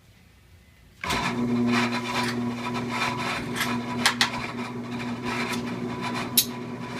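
A clipper-blade sharpening machine switches on about a second in and runs with a steady motor hum. Scratchy grinding noise and a few sharp clicks sit over the hum, near the middle and near the end.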